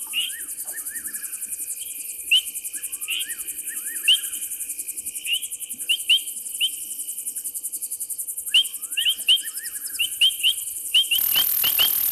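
Insects trilling, a steady, fast, high pulsing sound, with many short sharp chirps at irregular intervals and a few groups of three rising whistle-like calls from an unidentified animal. About eleven seconds in, a rushing noise joins in.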